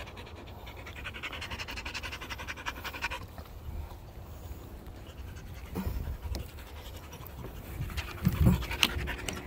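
A dog panting fast and evenly for about three seconds, then more quietly. A few dull thumps come near the end.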